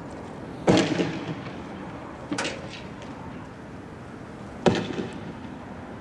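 Three loud explosive bangs, each trailing off in an echo, spaced about a second and a half to two and a half seconds apart; the first and last are the loudest.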